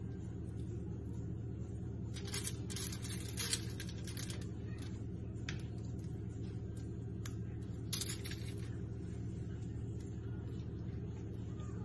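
Aluminium foil lining a baking tray crinkling in two short bursts, about two seconds in and again about eight seconds in, as marinated chicken pieces are set down on it, with a few single clicks between, over a steady low hum.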